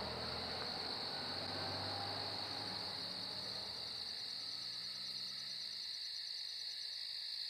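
Crickets chirping in a steady, even drone, with soft background music fading out in the first few seconds.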